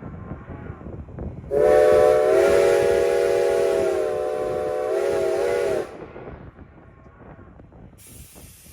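Locomotive No. 90's steam whistle blowing one long, loud blast of about four seconds. Its several tones sound together as a chord, which shifts slightly as the whistle valve opens fully and again as it closes. A fainter sound follows, in which the whistle's echo is heard.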